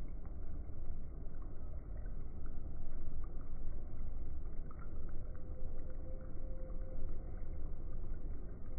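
Dough pieces deep-frying in hot fat in a kadai: a steady bubbling sizzle over a low rumble, with faint crackles scattered through it.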